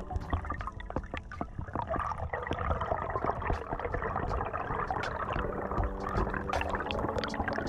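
Slow ambient background music with long held tones, over underwater water noise with a steady crackle of small clicks that grows rougher about two seconds in.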